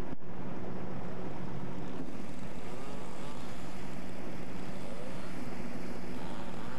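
Motorboat engine running steadily under way, a constant hum with wind noise on the microphone.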